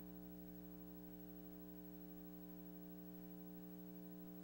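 Near silence with only a steady, faint electrical mains hum.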